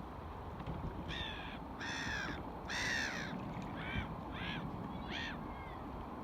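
A bird calling six times in a row, loud, arched calls spaced roughly a second or less apart, over a steady low rush of wind and water.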